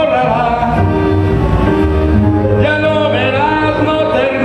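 A man singing live into a handheld microphone over a backing music track, with long held notes, amplified through a PA.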